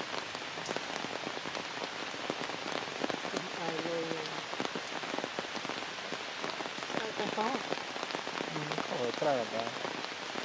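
Steady heavy rain falling on forest foliage, a continuous hiss with many individual drops ticking. A few short wavering calls rise over it, about four seconds in and again twice near the end.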